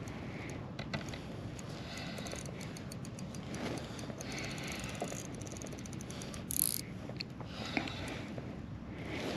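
Spinning reel being cranked to bring in a hooked fluke (summer flounder), giving runs of quick mechanical clicks. A short sharp noise cuts in about two-thirds of the way through.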